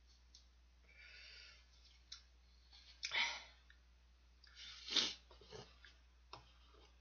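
A man blowing and sniffing his runny nose, which the spicy ramen has set running. There is a soft tissue rustle about a second in, then two sharp breathy bursts, about three and five seconds in.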